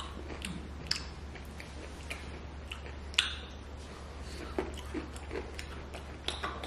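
Chewing and crunching of English toffee with nuts: scattered crisp crunches, the sharpest about three seconds in, over a faint steady low hum.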